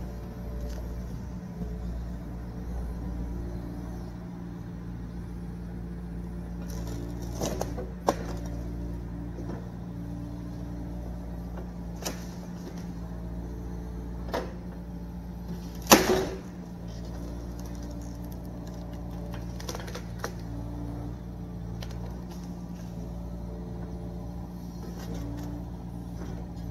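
Yanmar SV40 mini excavator's diesel engine running steadily under work, with scattered sharp knocks and cracks over it. The loudest knock comes about sixteen seconds in.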